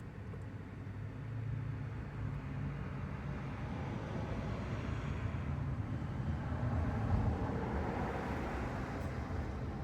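A motor vehicle passing by: a low rumble with rushing noise that swells over several seconds, peaks near the end, and then begins to fade.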